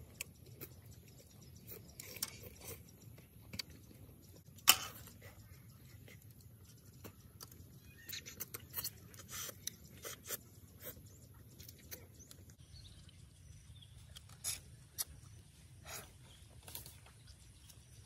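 Scattered small clicks and taps, with one sharper knock about five seconds in, over a faint steady background hiss; a high thin hiss in the background stops about two-thirds of the way through.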